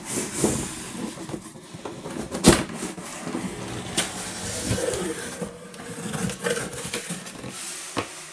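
Cardboard box being handled and opened by hand: the lid and flaps scrape and rustle, broken by several sharp knocks and taps, the loudest about two and a half seconds in.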